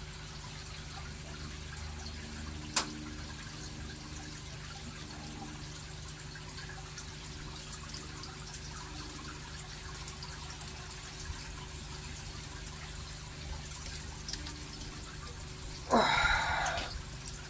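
Water trickling and dripping in a koi grading bowl over a steady low hum, with one sharp click about three seconds in. Near the end, a short splash as a hand net is dipped into the water.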